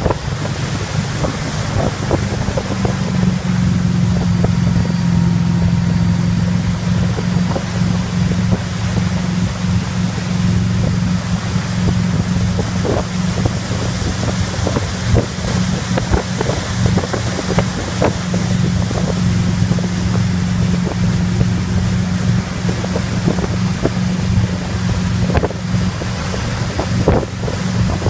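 Motorboat engine running steadily at towing speed, with the rush of the churning wake and wind buffeting the microphone.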